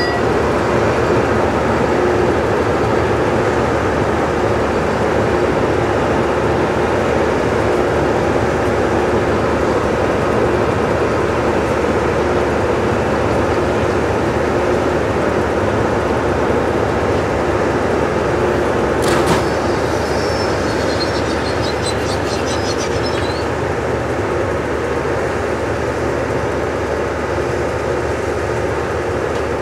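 Loram rail grinder train at work: a steady, loud machinery noise of its engines and grinding equipment. A sharp knock comes about nineteen seconds in, followed by a few seconds of faint high squeaks.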